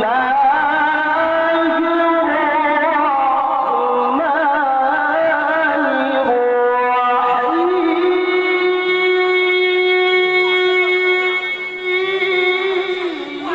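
A man's voice chanting Quran recitation in the melodic tilawah style, drawing out ornamented notes with a wavering pitch, then holding one long steady note for several seconds in the second half.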